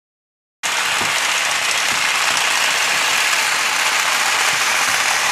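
Several battery-powered Tomy/Trackmaster toy trains running on plastic track: a steady, loud whirr and rattle of their motors and gears. It starts suddenly about half a second in, after silence.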